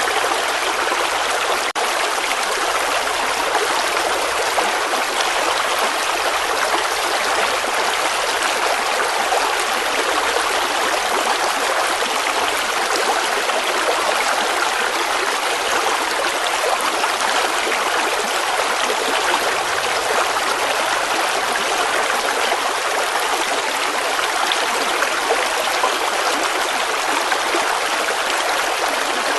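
Water flowing steadily, like a stream: an even rushing sound with no pauses or changes.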